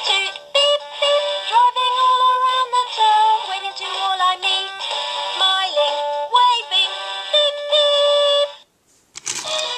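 A toy's electronic synthesized singing voice playing a song melody, thin and with no bass. It stops about eight and a half seconds in, and after a brief pause another tune starts near the end.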